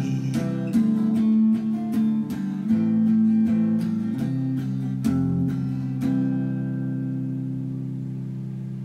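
Acoustic guitar playing the closing phrase of a song, ending about six seconds in on a final chord that rings on and slowly fades.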